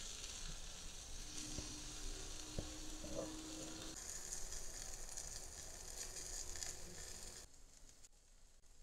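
Tri-tip beef steak sizzling on a wire grate over hot charcoal, a steady hiss with a few light ticks. The sizzle drops away sharply near the end.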